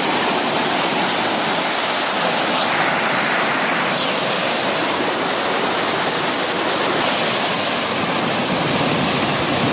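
Small woodland waterfall: water pouring over rock ledges in a loud, steady rush close by.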